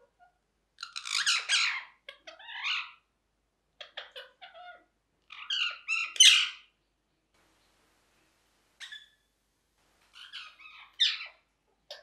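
Rose-ringed parakeet giving harsh squawking calls in about six short bursts, with pauses between them; the loudest burst comes a little past halfway.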